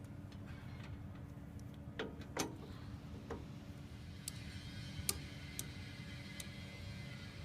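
A few light, sharp clicks and taps at irregular intervals, from go-kart parts and hand tools being handled during assembly, over a steady low hum.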